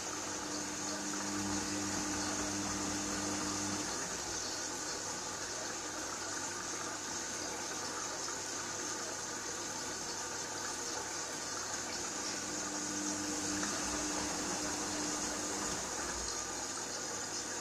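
Gorenje front-loading washing machine on a 95 °C wash with an extra-high water level: water sloshing in the drum as it turns the laundry. A low motor hum comes in twice, for a few seconds at the start and again about twelve seconds in.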